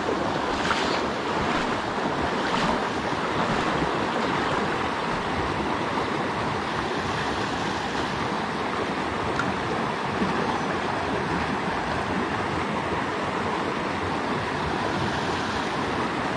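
Small stream rushing steadily over a shallow riffle of white water.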